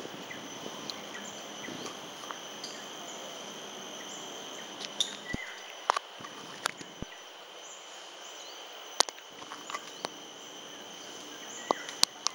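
Steady high-pitched drone of insects, with a handful of sharp clicks and taps scattered through it, the loudest about nine seconds in and near the end.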